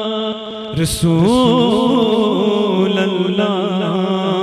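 A man singing a naat unaccompanied into a microphone. A held note ends just after the start; after a breath about a second in, he begins a new ornamented line whose pitch bends up and down.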